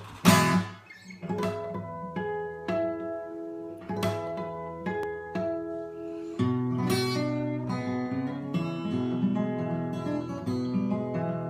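Steel-string acoustic guitar fingerpicked in a blues style, a capo on the neck: a sharp strummed chord at the start, then single plucked notes ringing out, settling into a steady picking pattern over a constant bass from about halfway through.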